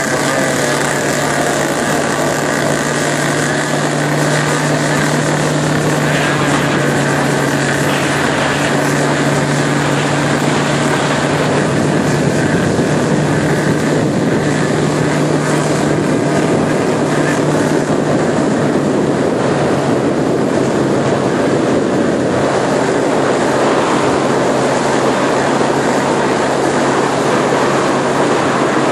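Motorboat running at speed on open sea: a steady engine drone under the loud rush of water along the hull.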